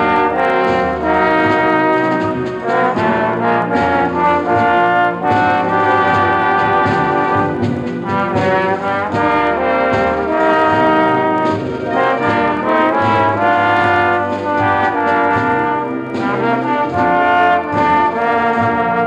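High school band playing a brass-led piece with full, sustained chords, from a 1965 LP record.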